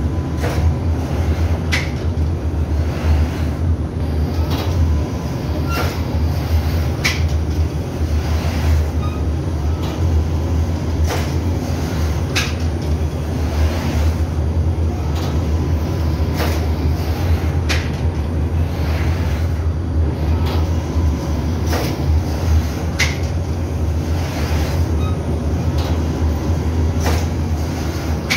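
Machinery of an automated flatbread oven line running: a steady low rumble with sharp clicks every second or two.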